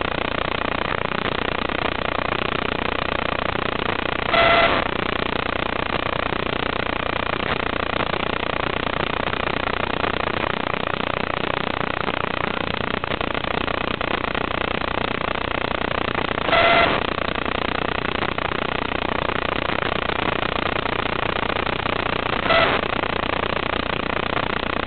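Steady hiss of an analog FPV video-link audio feed, with a short electronic beep sounding three times and again at the very end.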